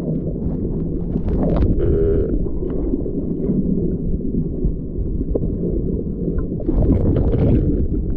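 Steady muffled low rumble of water around a submerged camera, with brief knocks and splashy noise about a second and a half in and again around seven seconds.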